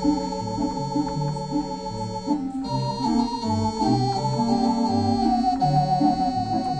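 Theatre organ playing a tune: a held melody line over sustained chords, with bass notes from the pedals moving along in a steady rhythm.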